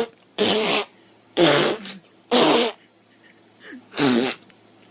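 A cat meowing loudly and harshly, five short calls about a second apart.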